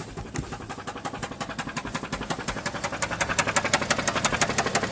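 Subaru Tribeca's flat-six engine idling with a fast, regular clacking knock, about eight a second, growing louder toward the end. The owner places the knock on the right side of the engine bay, by the battery.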